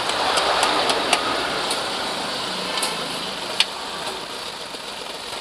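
Maruti 800's three-cylinder petrol engine running with a replacement ignition coil fitted, a steady even noise that fades slightly, with a few sharp clicks over it.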